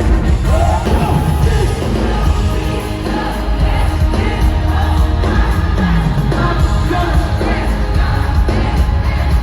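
Loud music with singing over a heavy bass.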